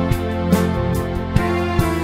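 Background music with sustained instrumental notes over a steady beat.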